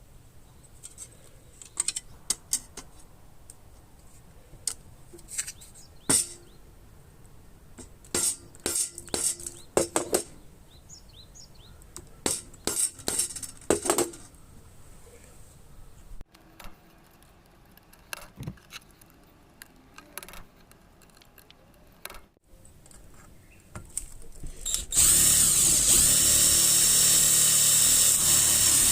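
Sharp clicks and knocks of metal parts being handled and tapped. About 25 seconds in, an electric power tool starts and runs steadily at a high, even pitch while working the tin.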